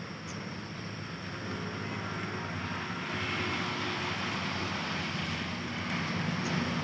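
A vehicle engine running steadily, a low rumble over general traffic noise, growing a little louder about three seconds in.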